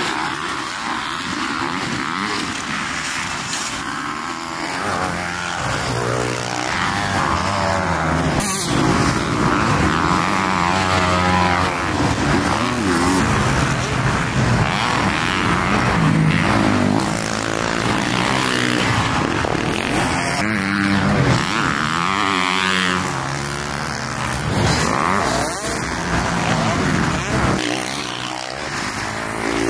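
Motocross dirt bikes running on the track, their engines revving up and falling back again and again as they accelerate and shift.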